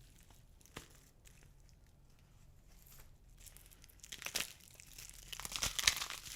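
Dry soap balls crunching and crumbling as they are crushed. A few faint crackles and one sharp snap come first, then thicker crumbling crackles start about four seconds in.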